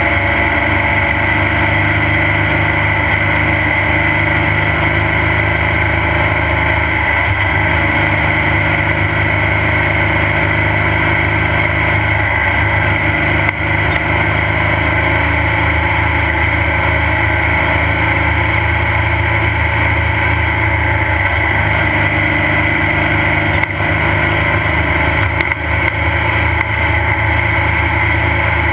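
Off-road race vehicle's engine running loud and steady at a constant speed, its pitch not rising or falling.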